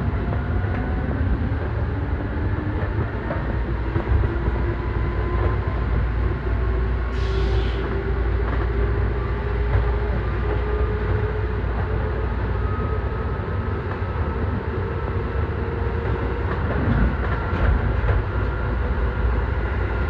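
Keisei Line electric train's traction motors whining and rising slowly in pitch as it picks up speed, then levelling off, over a steady low running noise of the wheels on the track, heard inside the driver's cab. A brief hiss about seven seconds in.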